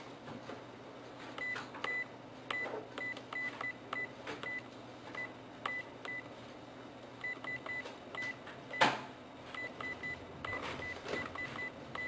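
VPC-100 handheld vehicle PIN code calculator beeping as its keypad buttons are pressed: a string of short, high beeps in uneven groups, one per key press while a password is entered, with faint button clicks and one louder click about nine seconds in.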